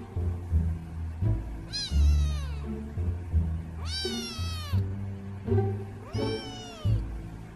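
A kitten meowing three times, each call rising and then falling in pitch and the middle one the loudest, over background music with plucked bass notes.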